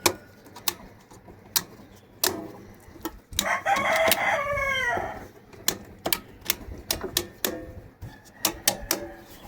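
A rooster crowing once, a drawn-out call of about a second and a half near the middle. Scattered sharp clicks and taps come before and after it.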